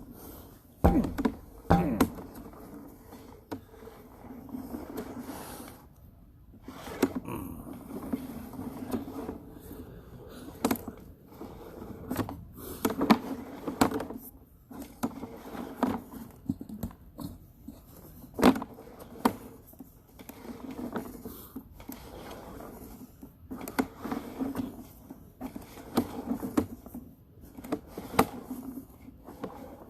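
Irregular scraping and knocking with sharp clicks, from a sewer inspection camera's push cable being fed down a drain line.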